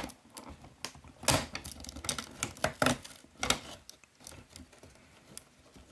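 A sealed cardboard advent calendar door being pried open and its contents handled: irregular sharp clicks and crackles, the loudest about a second and a half in, thinning out toward the end.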